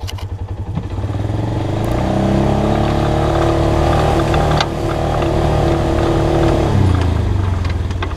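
Polaris RZR 570 side-by-side's single-cylinder four-stroke engine pulsing at idle, then revving up about a second and a half in and holding a steady higher speed under throttle. It drops back to a pulsing idle near the end, with a few light clatters from the machine along the way.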